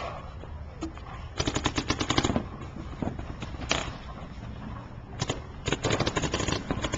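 Paintball markers firing rapid strings of shots, about ten a second. There is a burst a little over a second in, a lone shot near the middle, and another burst near the end.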